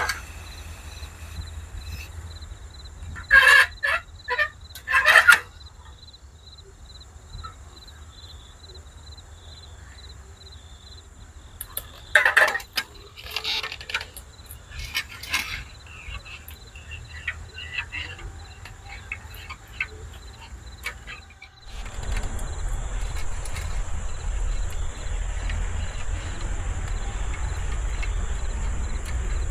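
Metal spoon clinking and scraping in an enamel mug as a drink is stirred, in two spells of several clinks each, over crickets chirping steadily. About 22 seconds in, the cricket chirping becomes louder and stays that way.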